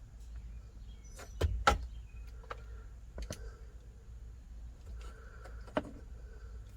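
A few sharp clicks and knocks from tools and small wire connectors being handled while wiring is spliced, the loudest pair about one and a half seconds in, over a low steady hum.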